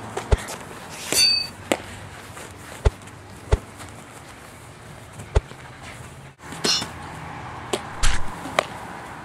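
Toy foam swords striking in a mock sword fight: a series of sharp knocks spaced about a second apart, with a few short whooshes and brief rings among them.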